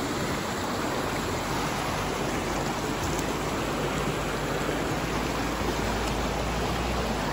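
Shallow spring-fed mountain stream running over rocks, a steady rush of water.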